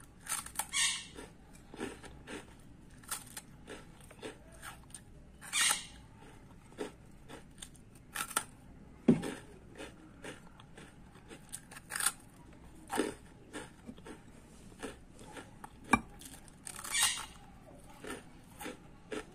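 Crisp toast biscuits being bitten and chewed: irregular dry crunches and crackles, with a few longer, louder crunches spread through.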